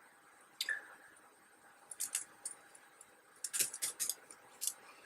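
Light clicks and taps of small plastic RC car parts being handled and fitted: a few scattered ticks, with a quick cluster of clicks about three and a half seconds in.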